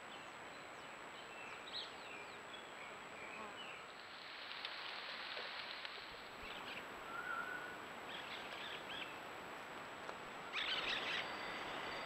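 Faint outdoor ambience through a trail camera's microphone: a steady hiss with scattered short bird chirps and calls, and a thin steady high tone. A burst of several chirps comes near the end.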